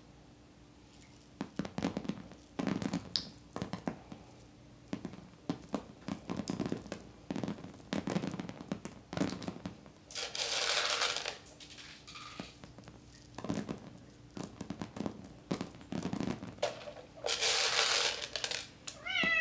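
Dried corn kernels being thrown to chickens: two showers of grain landing, each lasting over a second, about ten and seventeen seconds in, with many sharp taps and clicks of chickens pecking at the kernels in between.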